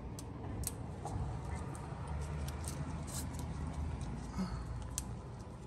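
Irregular crackling and light clicks of a protective plastic film being peeled off a stainless steel badge.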